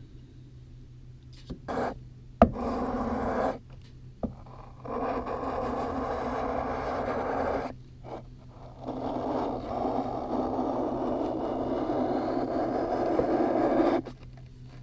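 Chisel blade being rubbed on 220-grit sandpaper to hone back a lost edge: steady scraping in three long spells, with a sharp click about two and a half seconds in. The scraping stops abruptly near the end.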